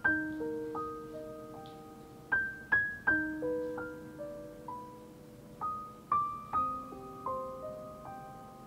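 Soft background piano music: single notes and chords struck a few times a second, each ringing and fading.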